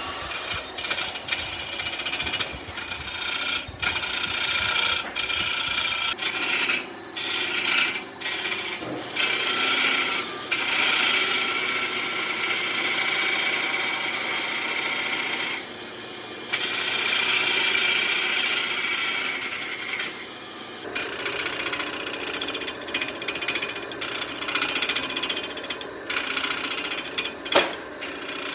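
Abrasive rubbing on wood, like sanding or rasping: a rough hiss in long stretches, broken by short pauses.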